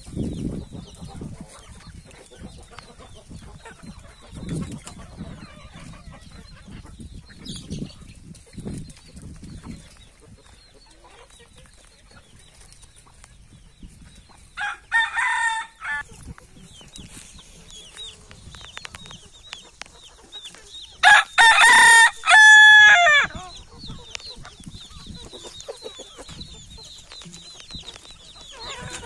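Rooster crowing once, loudly, about three-quarters of the way through, after a shorter call about halfway; around them a flock of hens clucking softly as they forage.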